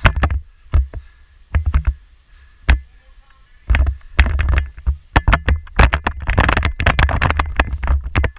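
Irregular sharp clicks and knocks over low, thumping rumble from a moving player's camera microphone during airsoft play. They grow dense and continuous in the second half.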